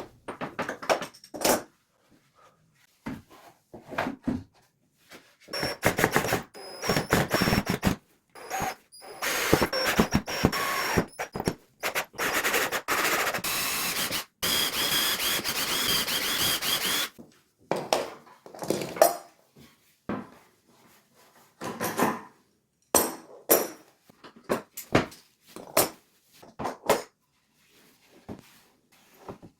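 Scattered knocks and clatter of hard objects being handled, with several seconds of continuous noise in the middle.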